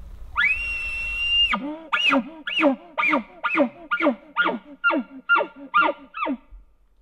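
Elk bugle call blown through a tube, imitating a bull elk's bugle: a quick rise into one long high whistle that cuts off sharply, then about ten chuckles, roughly two a second.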